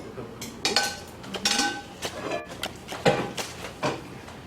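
Serving utensils clinking and knocking against a bowl and dishes several times as stir-fried japchae is served out, some knocks ringing briefly.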